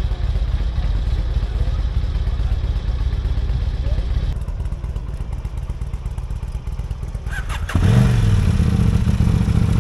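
Motorcycle engines running, a steady low rumble. About eight seconds in a nearer, louder engine comes in and briefly rises and falls in pitch.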